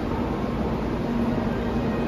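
Steady rumbling noise with a constant low hum at a Shinkansen station platform, as a Shinkansen train approaches from far down the line.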